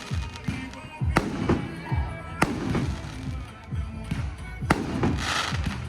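Aerial fireworks bursting: a string of sharp bangs, some with deep booms trailing after them, with a louder crack a little over a second in, another about two and a half seconds in, and a quick pair near the end.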